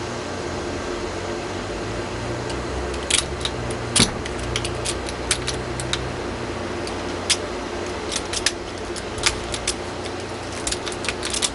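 Irregular sharp metal clicks of a homemade Bogota pick raking the pins of a Master Lock No. 5 padlock held under a tension wrench, starting about three seconds in. A steady fan-like hum runs underneath.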